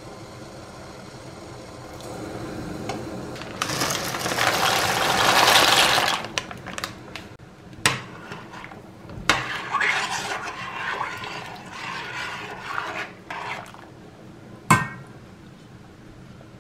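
A stainless steel pot of water heating on a hob with a steady hiss. About four seconds in there is a loud rushing rattle as dry spelt penne is poured into the water. After that a spoon stirs the pasta and clinks against the pot, and near the end there is a sharp clink as a glass lid goes on.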